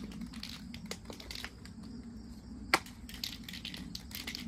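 Handling of aerosol spray paint cans: scattered light clicks and rattles, with one sharper click a little past halfway.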